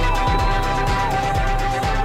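Background music with a steady drum beat under a held melody note that steps down about a second in.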